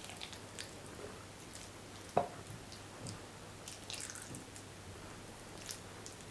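Silicone spatula scraping red caviar out of a small glass bowl onto a soft salad layer: faint, scattered wet squishes and small clicks, with one louder tap about two seconds in.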